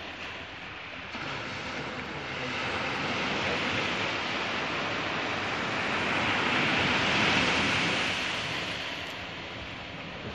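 Sea surf washing on the shore: a steady rushing noise that swells over several seconds and eases off near the end.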